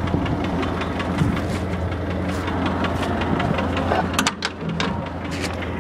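Farmall H tractor's four-cylinder engine running steadily with an even, rapid beat. A few sharp clicks come about four seconds in.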